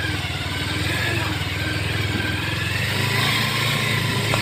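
Motorcycle engine running steadily at low speed, growing slightly louder about three seconds in.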